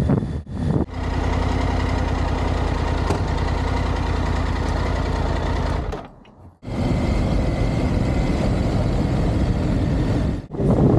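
Motorcycle engine running at a steady speed while riding, with wind and road noise. The sound drops out briefly about six seconds in and again near the end.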